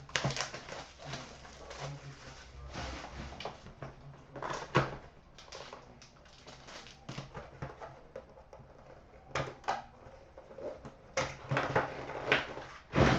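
Trading cards being handled on a table: irregular rustling and flicking with sharp little taps and snaps, the loudest about five seconds in and again near the end.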